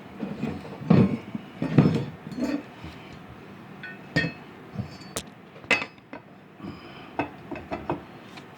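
Irregular metal clinks and knocks from fitting a new blade, washer and bolt onto a walk-behind mower, the heaviest knocks about one and two seconds in.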